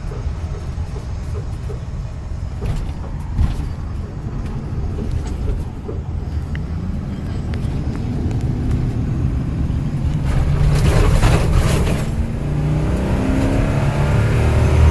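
Vehicle engine and road noise while driving in traffic, the engine note rising near the end as it accelerates.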